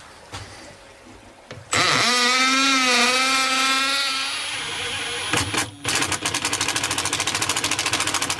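A cordless drill runs for about two and a half seconds from just under two seconds in, its pitch dipping and rising as it bores into the wall behind the cabinet. After a couple of clicks, a cordless impact driver starts a fast, even rattle, driving a Tapcon concrete screw.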